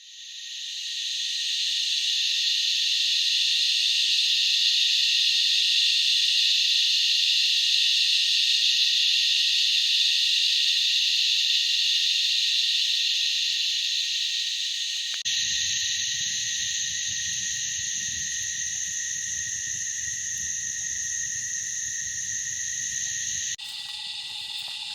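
Steady, high-pitched night chorus of calling insects and frogs in rainforest. It fades in at the start and changes abruptly twice, after about 15 seconds and again near the end.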